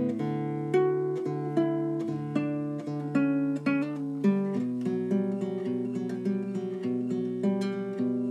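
Background music: acoustic guitar, plucked and strummed in a steady rhythm.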